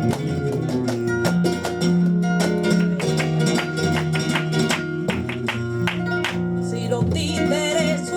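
Flamenco guitar playing a fandango, with sharply plucked notes over held bass notes. A singer's voice comes in near the end.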